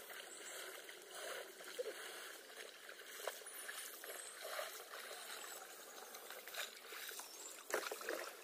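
Oars of an inflatable PVC rowboat dipping and splashing in the water as it is rowed, faint and irregular. There are a few sharper splashes and knocks, the loudest near the end.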